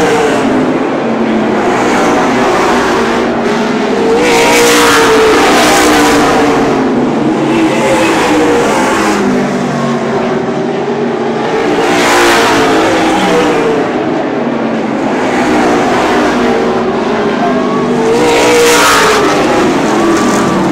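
Super late model stock cars racing in a pack, their V8 engines rising and falling in pitch as they lift and accelerate around the oval. The sound swells three times as cars pass close by.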